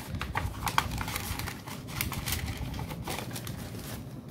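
Paper banknotes and paper envelopes rustling and crinkling as they are handled, a run of crisp crackles and small taps that eases off near the end.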